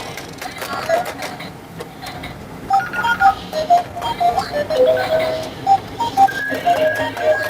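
Toy claw machine playing its electronic jingle: a simple melody of short beeping notes, with light clicks mixed in.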